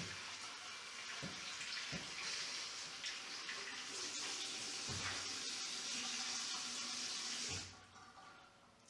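Water running from a bathroom tap into a ceramic washbasin, with a few knocks as things are handled in the basin; the tap is shut off and the water stops suddenly near the end.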